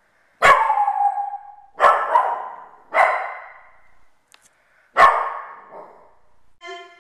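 A dog barking four times, a second or two apart, each bark starting suddenly and trailing off, followed by a short higher-pitched whine near the end.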